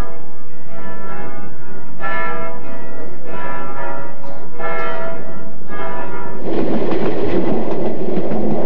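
Bells ringing, a chord struck about every second, giving way about two-thirds of the way through to the loud, steady running noise of a passenger train on the track.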